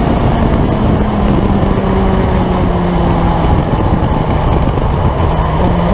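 Turbocharged Suzuki Hayabusa motorcycle engine running under heavy wind rush at very high speed, its pitch sinking slowly as the bike slows down, then stepping up abruptly near the end.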